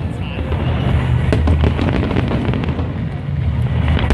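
Fireworks crackling and popping over loud music played for a musical fireworks show, with a heavy low rumble underneath.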